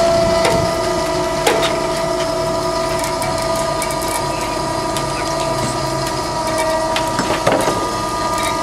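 Machinery running with a steady whine, with scattered clicks and two louder knocks, one about a second and a half in and one near the end.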